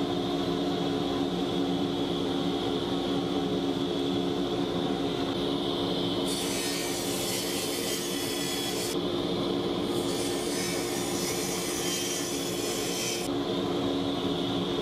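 Radial arm saw crosscutting a wide hardwood board. A steady motor hum runs throughout, and the blade biting through the wood adds two stretches of high hissing cut noise, about six seconds in and again about ten seconds in, each lasting about three seconds.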